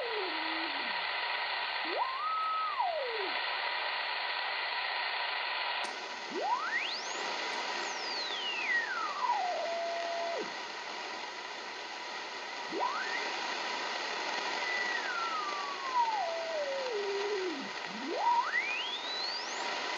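R-390A tube communications receiver, BFO on, sounding the whistling beat note of its 100 kHz crystal calibrator signal as the dial is tuned across it. A single tone sweeps up to a high whistle and back down toward zero beat several times over steady receiver hiss, which gets brighter about six seconds in.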